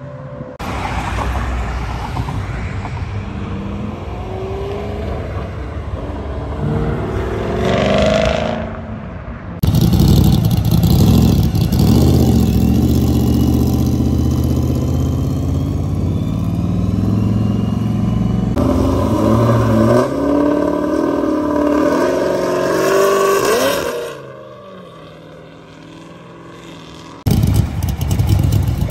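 Chevrolet Camaro engines, among them a second-generation Camaro's, accelerating hard away from a standstill in a run of short clips. The revs rise in sweeps, with loud steady running between, and there is a quieter stretch shortly before the end.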